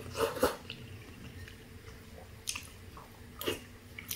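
A person slurping pho rice noodles from a bowl of soup and chewing them. The loudest slurp comes in the first half second, with two shorter slurps later, about a second apart.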